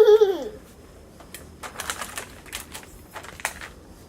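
A plastic Oreo cookie package crinkling as it is handled, a string of sharp crackling clicks.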